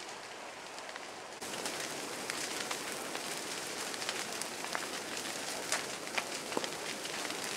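Wildfire burning through dry brush and small trees: dense crackling and popping of burning twigs over a steady hiss. It turns louder about one and a half seconds in.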